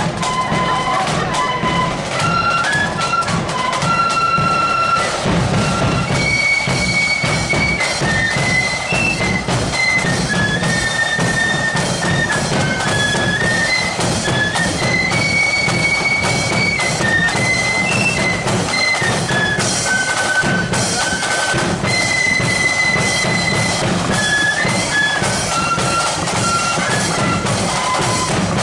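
Marching flute band playing a tune in unison on high flutes, with drums keeping a steady march beat underneath.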